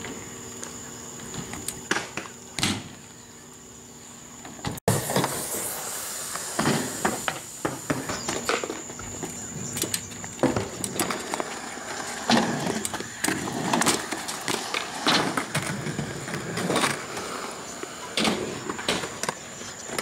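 BMX bike being ridden on a concrete skatepark: tyres rolling, with many short clacks and rattles from the bike and its landings. A brief drop-out about five seconds in, then the clatter comes louder and more often.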